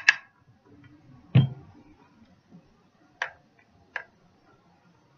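Glass jar and utensils handled over a plastic mixing bowl: a quick run of sharp clicks that ends just after the start, a dull knock about a second and a half in, then two single sharp clicks near the end.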